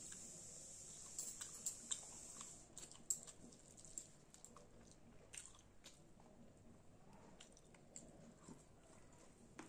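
Quiet close-up eating sounds: chewing a mouthful of rice and curry, with scattered sharp clicks and smacks, a cluster of them about a second in.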